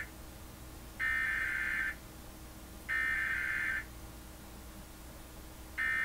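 Emergency Alert System digital data tones: two harsh, buzzy bursts about a second long each, a second apart, typical of the SAME header that encodes the Required Weekly Test, followed near the end by a shorter burst like an end-of-message code. A faint steady hum runs underneath.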